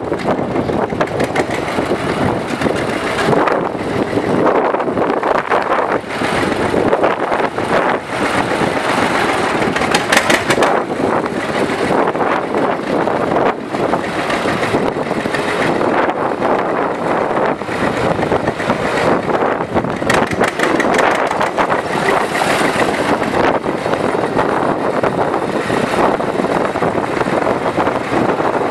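John Deere 70 tractor's 6.2-litre two-cylinder gas engine running steadily.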